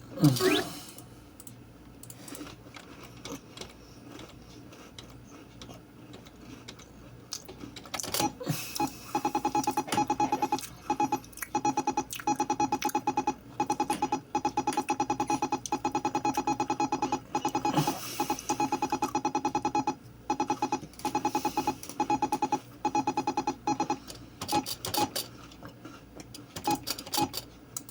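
An electronic tone pulsing very rapidly, like music or an electronic toy, starting about eight seconds in and stopping a few seconds before the end, with scattered clicks before and after it.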